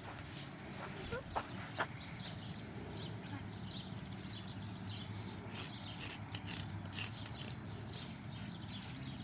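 Small birds chirping over scattered sharp knocks and clicks, two louder knocks about a second and a half in, with a steady low hum underneath.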